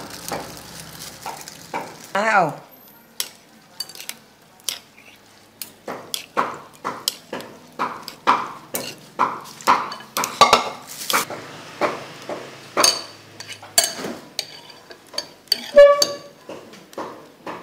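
Metal spoon and chopsticks clinking and scraping against a ceramic bowl while stirring noodles into soup: a long run of irregular sharp clinks, some ringing briefly.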